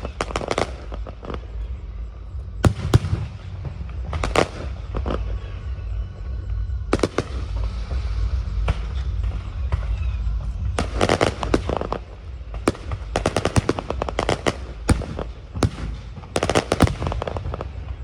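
Fireworks going off in quick volleys: sharp bangs in clusters of several at a time, with crackling between the volleys, over a steady low rumble.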